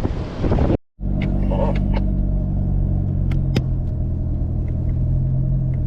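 A four-wheel-drive vehicle's engine running at a steady speed, an even low hum with a few light clicks about halfway through.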